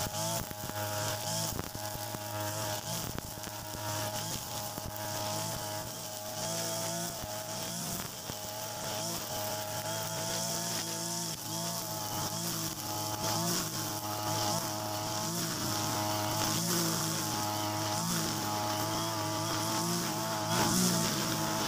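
Mitsubishi brush cutter's small petrol engine running steadily with its nylon trimmer line spinning through grass, the engine note wavering slightly as the line meets the grass.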